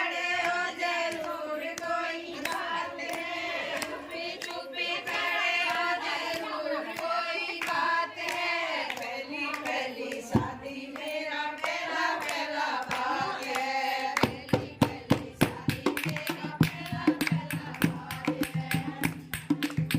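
Group singing, with sharp beats joining at a quick steady rhythm about fourteen seconds in.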